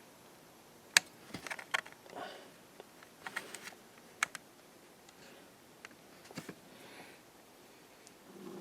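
Scattered light clicks and taps from handling at a metal lathe, the sharpest about a second in and a quick cluster a few seconds later.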